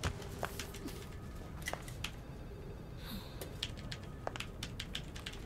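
Light, irregular clicking of a computer keyboard being typed on, a few keystrokes a second, over a low room hum.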